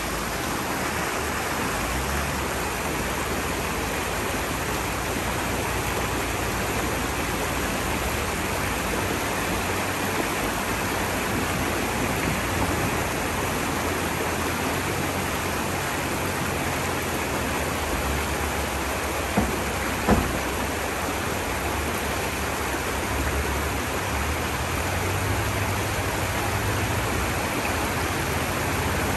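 Shallow rocky stream rushing steadily over stones in white water. Two sharp clicks come about two-thirds of the way through.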